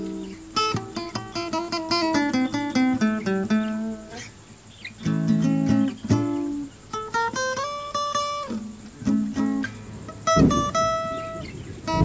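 Acoustic guitar music: plucked melody notes and strummed chords, each note starting sharply and fading, with short breaks between phrases.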